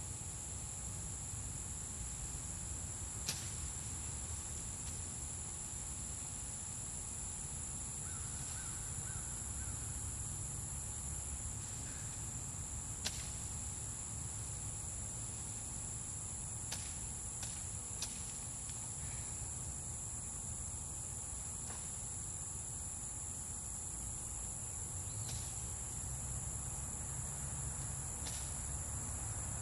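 Steady high-pitched chorus of crickets or similar field insects over a low, even rumble, with a few sharp clicks or knocks scattered through.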